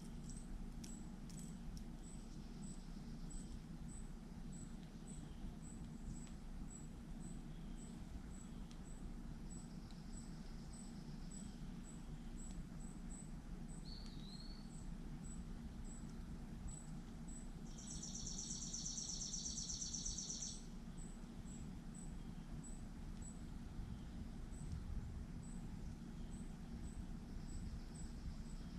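Backyard birdsong and insect sound: a faint high chirp repeats about every half second, a single short bird note sounds near the middle, and a buzzy trill lasting about two and a half seconds, the loudest sound, comes about two-thirds through. A steady low hum runs underneath.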